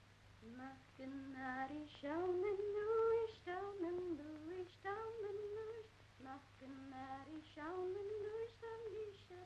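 A woman singing a slow unaccompanied song, a single voice holding long notes and gliding between them in a simple melody.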